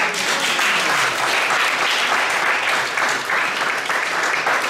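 Audience applauding: many hands clapping together, starting suddenly and holding steady.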